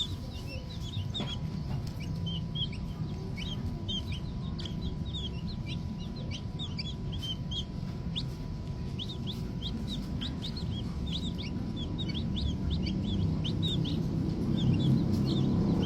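Green junglefowl chicks peeping: many short, high chirps, several a second, over a low background rumble.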